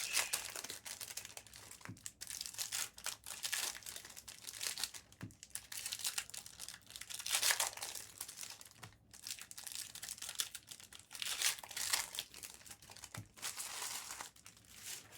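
Plastic trading-card pack wrappers crinkling and tearing open in repeated bursts, with light clicks of card handling.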